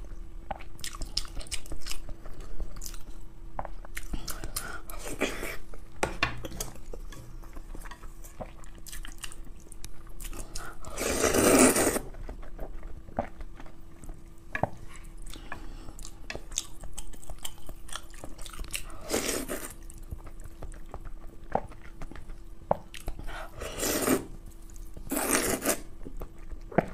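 Eating noodles in soup at close range: chewing and small clicks of chopsticks and spoon against the bowl, with several slurps of noodles, the longest and loudest about halfway through and shorter ones near the end.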